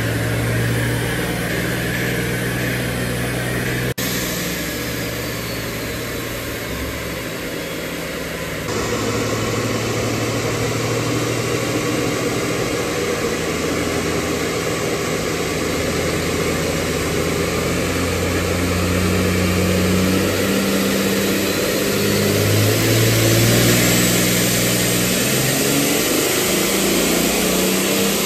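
Compound-turbocharged 5.9 Cummins turbo-diesel in a Dodge Ram dually running on a chassis dyno at light load, about 2,200 rpm, under a steady rush of air and roller noise. In the last third the engine note drops and climbs again several times and gets louder.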